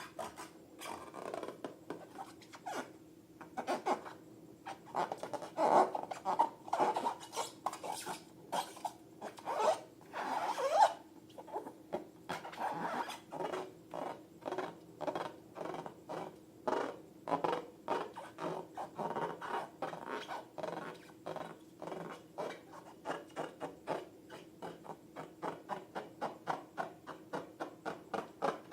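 Slime being mixed and worked, a long run of short sticky, rubbing strokes. They are irregular and louder in the first half, then settle into an even rhythm of about two a second.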